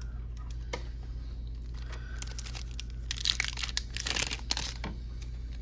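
Pokémon trading card booster pack's foil wrapper crinkling as it is handled and torn open. The crackling is loudest from about three to four and a half seconds in.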